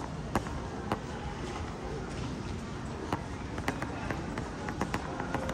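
Busy airport terminal hall: indistinct chatter of many travellers with irregular sharp footstep clicks on a hard floor.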